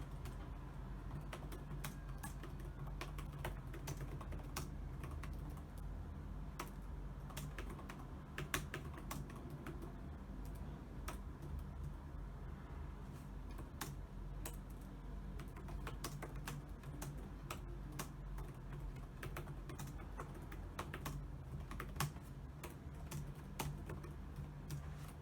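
Typing on a computer keyboard: irregular runs of key clicks over a faint steady hum.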